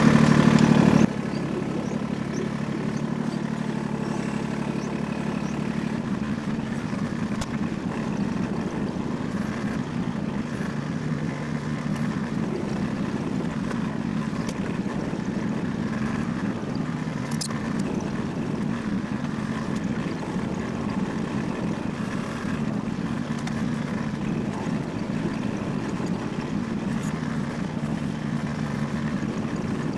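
An engine running steadily. It is louder for about the first second, then drops suddenly to a lower, even level.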